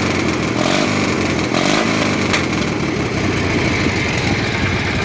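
18-horsepower twin-cylinder engine of a pulling lawn mower tractor running. It rises and falls in pitch with the gas pedal in the first couple of seconds, then settles to a steady idle.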